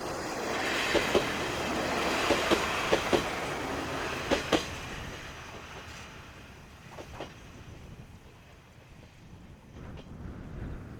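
Diesel railcar passing, its wheels clacking over rail joints in quick pairs as the running noise swells and then fades away over about five seconds.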